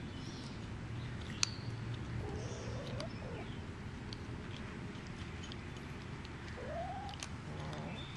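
Kittens eating dry kibble from a bowl, with faint scattered crunching clicks over a steady low hum. Two soft rising calls come through, one about two and a half seconds in and one near the end.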